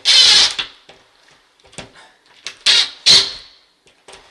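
Cordless driver spinning a drywall screw out of the wall in short trigger bursts: one at the start, then two more quick runs about three seconds in.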